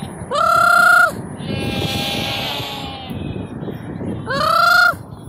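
A man's imitation goat call, a high wavering bleat held for about a second, given twice: near the start and again about four seconds in. In between, a fainter answering bleat comes from the goat herd.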